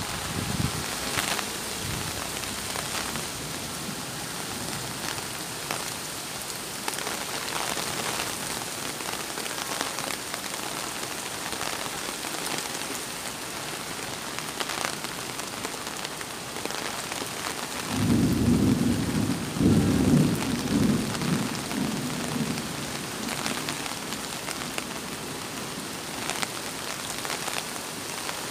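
Heavy rain falling, a steady hiss of rain on the wet road. About eighteen seconds in, a low rumble rises and lasts about five seconds.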